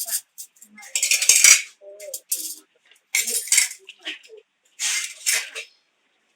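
Metal utensils scraping and clanking against cookware in repeated strokes, about every second and a half to two seconds.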